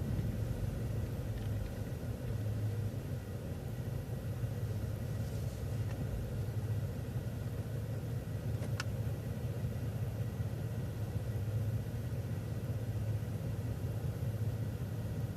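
City transit bus driving along a street, heard from on board: a steady low rumble of engine and road noise. A single short click comes about nine seconds in.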